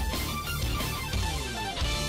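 Background music with a steady low bass, and a falling pitch sweep about a second in.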